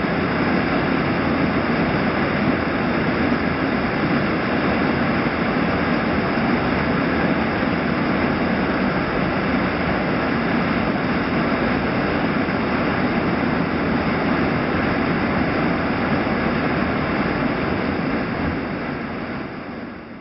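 Rushing whitewater: a steady, dense roar of churning, foaming water that fades out near the end.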